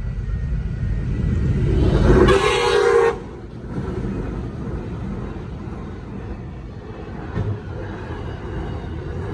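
Pacific National NR-class diesel-electric locomotives, four coupled together, hauling a container freight train through a level crossing. A loud horn blast sounds about two seconds in and lasts about a second, then the low steady rumble of the locomotives and wagons going by.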